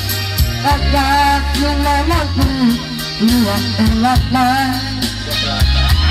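A man singing a melodic line into a microphone over backing music with steady held bass notes, his voice wavering and gliding between notes.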